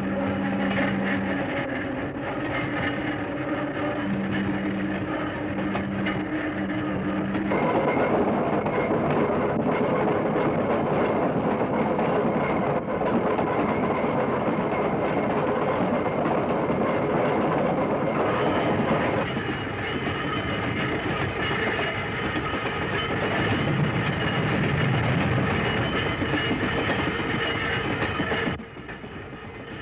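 Pacific Electric Red Car, an electric interurban railcar, running along the rails. A low steady tone breaks off and sounds again several times in the first seven seconds, and the running sound changes abruptly at about seven and a half and nineteen seconds in.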